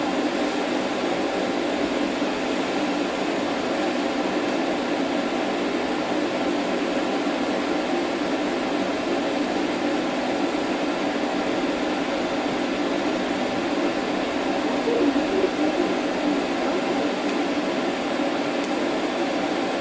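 TIG welder running during a weld, giving a steady, even hiss and hum that stays level throughout.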